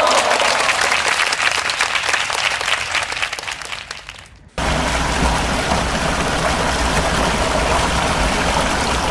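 Water rushing steadily down a small stepped concrete weir channel, starting abruptly about halfway in. Before it, a dense crackling patter fades away.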